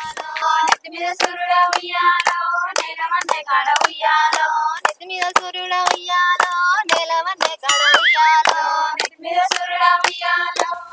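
A woman singing a melodic song over a steady percussive beat, with a short rising pitched flourish about eight seconds in.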